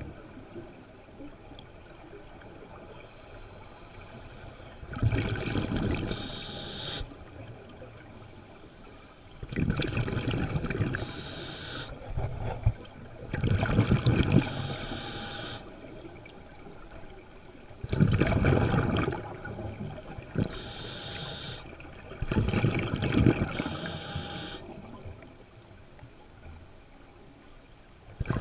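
Scuba diver breathing through a regulator underwater: a rush of exhaled bubbles and a hiss on each inhale, about five breaths roughly four to five seconds apart.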